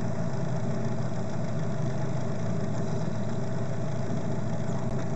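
A small boat's outboard motor running at a steady speed while the boat is under way.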